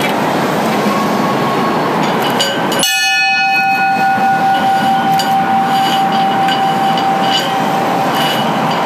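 A single bell strike about three seconds in: its upper tones die away quickly and one clear tone rings on for about five seconds. Under it runs a steady rushing noise.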